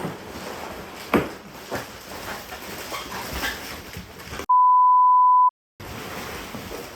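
Scattered knocks and handling noises, then the sound cuts out abruptly and a loud, steady one-second censor bleep at a single pitch plays about four and a half seconds in, before the background noise returns.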